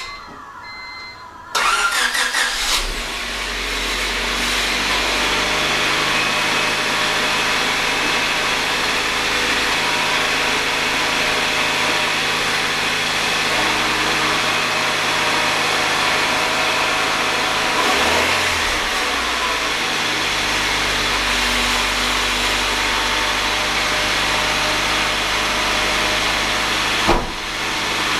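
Honda Civic D16Y7 1.6-litre four-cylinder cranking and catching about a second and a half in, then running at a steady idle. There is a shift in the engine's note about two-thirds of the way through, and a short sharp sound near the end.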